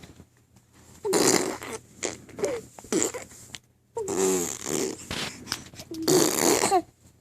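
A baby blowing raspberries, making fart noises with the lips in about four buzzy, spluttering bursts, each up to a second long.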